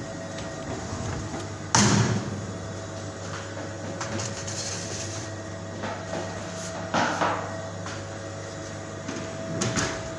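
Aluminium sheet pan clattering against metal as it is slid into a bakery rack cabinet, loudest about two seconds in, with further metal knocks around seven seconds and near the end. A steady machine hum runs underneath.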